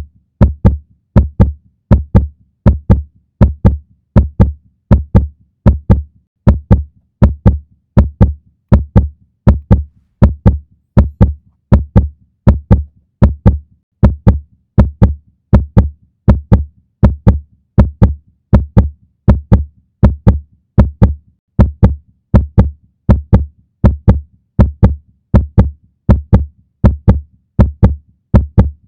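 Heartbeat, presented as a puppy's: a steady run of low double thumps (lub-dub), about one pair a second, keeping an even rhythm throughout.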